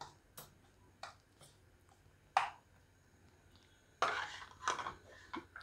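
Metal spoon stirring and scraping a dry, coarse pickle spice mix in a stainless steel bowl: a few short scrapes, the sharpest about two and a half seconds in, then a longer, louder scraping rustle about four seconds in.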